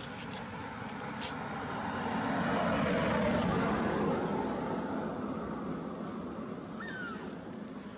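A motor vehicle passing by, its noise swelling to a peak about three seconds in and then slowly fading.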